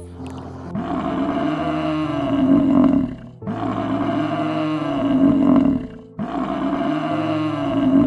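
A large animal roaring: three long, deep calls of about two and a half seconds each, one after another.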